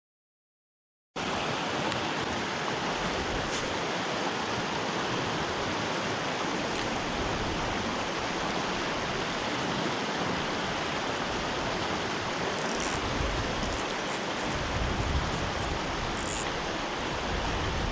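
Mountain stream rushing in a steady, even wash of water. It comes in abruptly about a second in, after a moment of silence.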